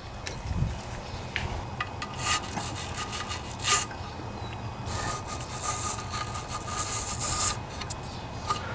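Small wire brush scrubbing out a threaded bolt hole in a Briggs & Stratton Intek engine's crankcase flange, with metal bristles rasping against the threads in bouts of scrubbing. The holes are being cleaned so the sump-cover bolts don't bind going in.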